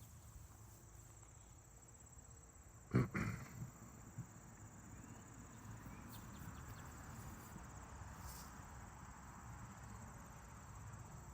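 Outdoor ambience of insects chirring steadily and high-pitched. About three seconds in there is a brief, low vocal sound from a person.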